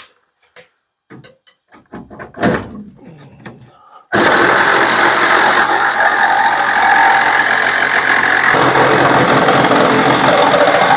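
A few handling clicks, then about four seconds in a reciprocating saw with a fine 150 mm metal-cutting blade starts up and runs steadily, cutting through the sheet-steel panel of a van's rear door.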